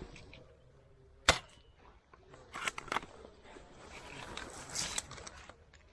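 A single sharp crack about a second in, the loudest sound here, fitting a shot from an airsoft sniper rifle, followed by brief bursts of rustling and small clicks of movement through foliage and gear.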